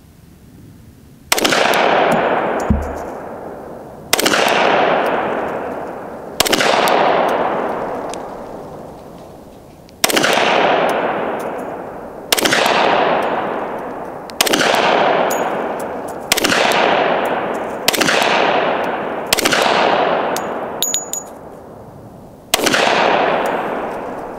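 Ten single shots from a Glock 20 10mm pistol, fired slowly one at a time, two to four seconds apart, each followed by a long fading echo.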